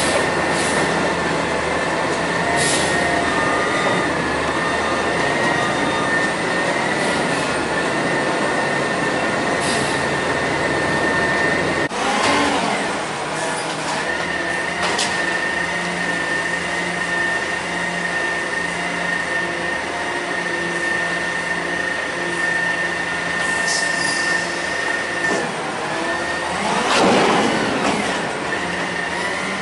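CCC Amrep front-loader garbage truck running with its hydraulic packer system, giving a steady mechanical hum with a thin high whine. The sound shifts suddenly about twelve seconds in and swells louder near the end.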